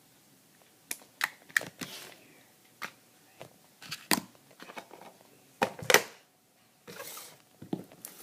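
Slime being squished and stretched in the hands, giving irregular sticky pops and clicks, the loudest about six seconds in.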